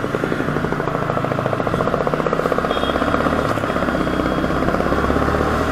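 Yamaha R15 motorcycle's single-cylinder engine running under way with a rapid, even pulse, slowly getting louder as the bike picks up speed.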